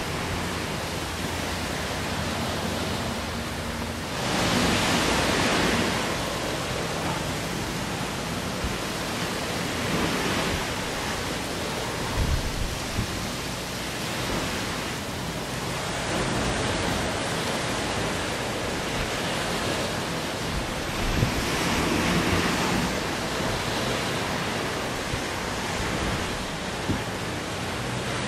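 Steady rushing noise of wind and ocean surf, with gusts buffeting the microphone. It swells several times, loudest about four seconds in and again near twenty seconds.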